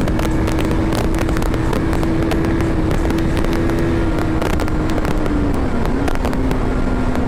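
Motorcycle engine running at a steady cruising pitch, buried in loud wind blast buffeting the microphone; the engine note dips a little about six seconds in as the throttle eases.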